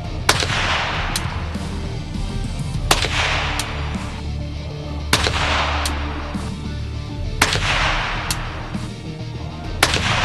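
Five shots from a .22 gun firing pellets driven by nail-gun powder-load blanks, about one every two and a half seconds, each a sharp report with a fading ring after it. Fainter sharp cracks fall between the shots.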